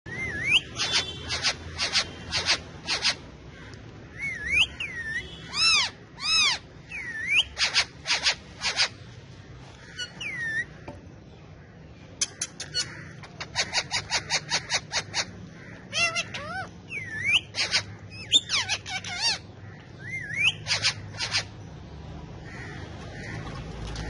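Indian ringneck parakeets calling: runs of short, shrill screeches, several a second, mixed with whistles that rise and fall. The calls die away near the end.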